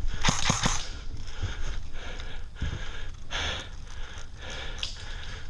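Airsoft rifle firing a quick string of about four shots near the start, then breathy noise from the player and gear between further scattered clicks.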